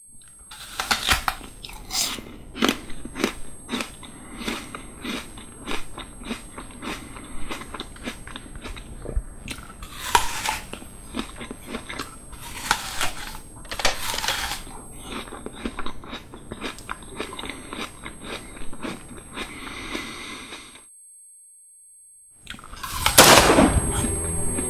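Film sound effects: a dense run of irregular clicks and crackles with several short whooshing swells, over faint high steady tones. It breaks off about 21 seconds in, and a loud swell of noise comes in near the end.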